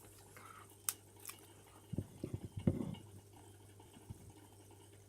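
Slime being handled: a few soft wet squelches and light clicks, clustered about two to three seconds in.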